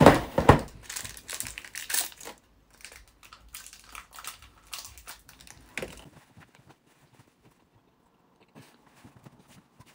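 Crinkling of a wrapped chocolate's wrapper being handled and opened, dense and loud for the first couple of seconds, then sparser, dying away to near silence after about six seconds.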